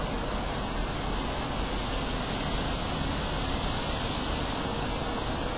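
Steady engine noise from tractor pulling, with a faint rising tone near the end as an engine revs up.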